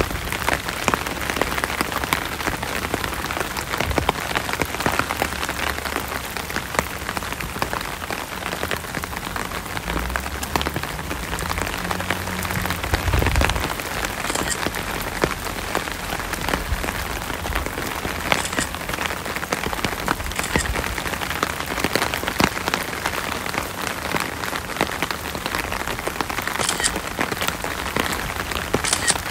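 Steady rain falling, many small drop impacts in a continuous hiss, with a few sharper ticks. A low rumble for a few seconds about a third of the way in.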